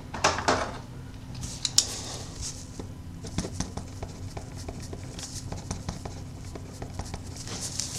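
A pen writing on a paper card: faint, irregular scratching strokes with small taps.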